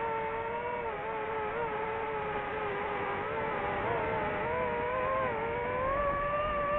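DJI FPV drone's motors and propellers whining steadily, the pitch wavering with throttle and rising about five seconds in.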